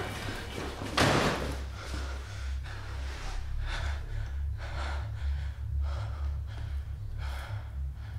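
A person gasping sharply about a second in, then breathing hard in quick, heavy breaths about every half-second, over a low steady hum.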